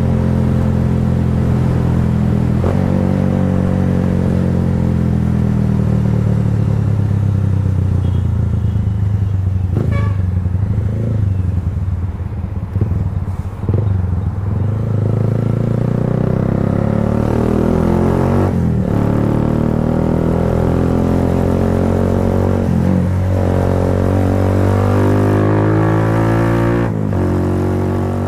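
Kawasaki Rouser 180's single-cylinder four-stroke engine running through an Akrapovic slip-on muffler. Engine speed dips about halfway through, then climbs steadily for around twelve seconds before dropping near the end.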